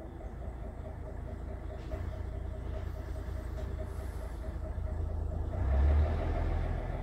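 Mercedes-Benz lorry's diesel engine running as the lorry pulls slowly past at close range, a steady low rumble that swells to its loudest about six seconds in. Heard from inside a parked van, through the glass.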